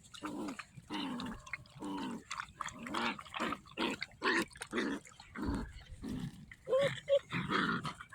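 Seven-week-old puppies whining and grunting, many short calls one after another.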